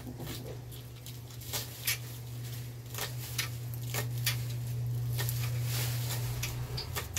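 Coconut-milk sauce with crab and vegetables coming to the boil in a pan, bubbling with irregular small pops. A steady low hum runs underneath.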